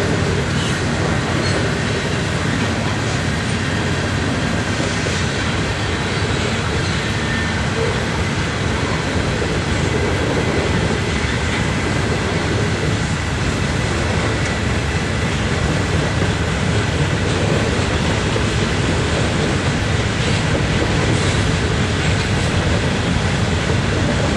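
Freight cars of a CN mixed freight train (boxcars, lumber cars and tank cars) rolling steadily past, a continuous noise of steel wheels on the rails.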